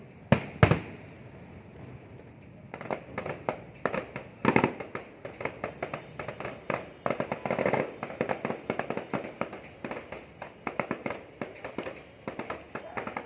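Fireworks going off: two loud sharp bangs near the start, then from about three seconds in a long, dense run of rapid pops and crackles.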